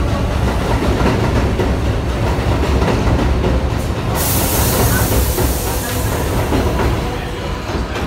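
New York City Subway 7 train of R188 cars running past the elevated platform on steel rails as it pulls away. A loud hiss of air cuts in suddenly about four seconds in and dies away a few seconds later, and the train noise fades near the end as the last car leaves.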